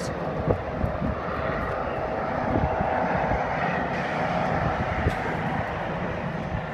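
Gusty wind buffeting the microphone over a steady distant mechanical drone that swells slightly and eases off.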